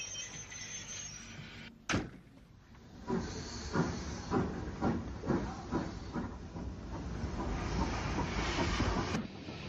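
Steam locomotive working a train: a steady hiss of steam at first, a sharp click about two seconds in, then regular exhaust beats at about two a second.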